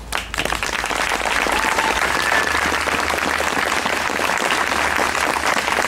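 Audience applauding, the clapping swelling within the first half-second and then holding steady.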